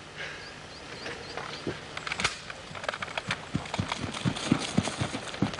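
Footsteps running over grass, with the thuds and knocks of a handheld camera carried on the run. The thuds come at about two to three a second and grow louder and thicker in the second half.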